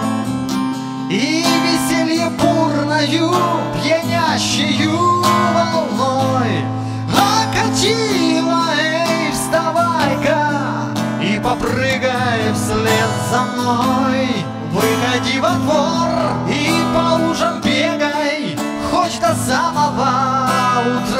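Acoustic guitar strummed through a chord progression in A minor: A minor, A minor with C in the bass, and E minor.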